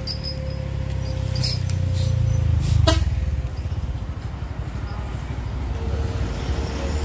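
A motor vehicle's engine running as it passes close by, growing louder up to about three seconds in and then easing off, with a sharp click about three seconds in.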